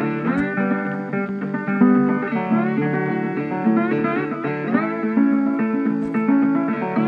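Background music: guitar playing, with notes that slide up in pitch every second or two.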